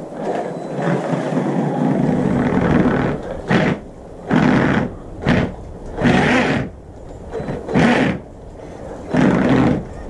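Traxxas Maxx electric RC monster truck on snow, driven in about six short throttle bursts from about three seconds in, its brushless motor and spinning tyres running loud between quieter pauses.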